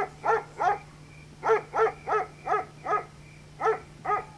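A dog barking in quick runs of short, high barks, about three a second: three barks, a pause, five barks, then two more. A steady low hum runs underneath.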